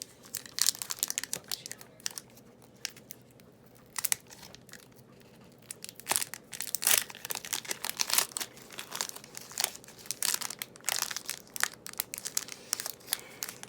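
Foil booster-pack wrapper being crinkled and torn open by hand, in irregular bursts of crackling, with a quieter stretch early on before the crinkling picks up again.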